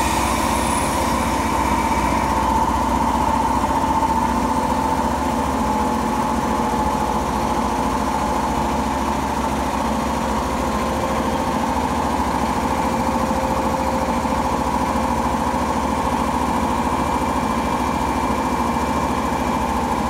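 JR East 485-series electric train standing at the platform, its underfloor equipment running with a steady hum and a whine held at a few fixed pitches.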